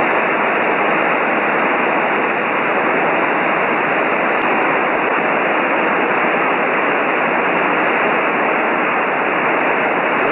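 Steady hiss of radio static from the aircraft's radio, heard through the cockpit intercom: the squelch is not shutting out the noise on a quiet frequency, a squelch problem the pilot cannot yet account for.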